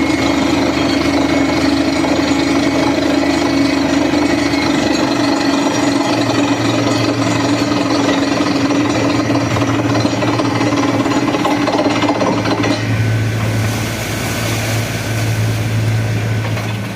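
Borewell drilling rig running steadily, a dense mechanical noise over a low engine hum. About thirteen seconds in the sound thins and drops slightly in level.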